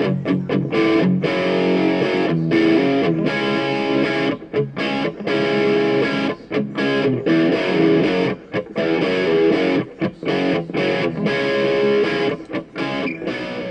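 Background music led by an electric guitar with distortion.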